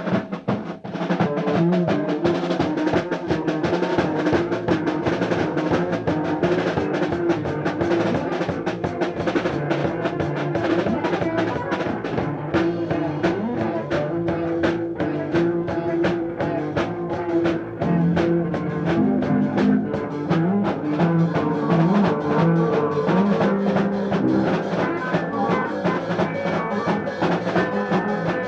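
No-wave rock band jamming instrumentally: a drum kit plays a steady beat under guitar lines. It is a loose, unfinished run-through of a song that never came together.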